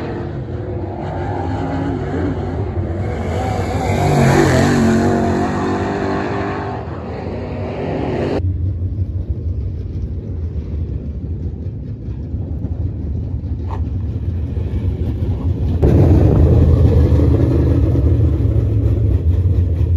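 Dirt late model race cars' V8 engines running on the track, the pitch rising and falling as they go round. The sound changes abruptly about eight seconds in to a lower, deeper rumble, and grows louder again about sixteen seconds in.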